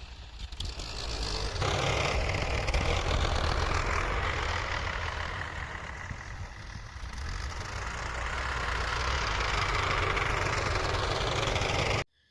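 Farm tractor engine running steadily, loudening about a second and a half in and stopping abruptly near the end.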